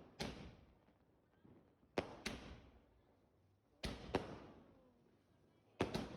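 Fireworks going off at a distance: sharp bangs every couple of seconds, mostly in pairs, each with a short echoing tail.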